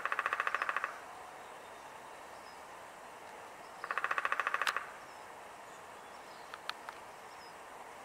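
Downy woodpecker drumming on a tree trunk: two rapid, even drum rolls of under a second each, one at the start and one about four seconds in.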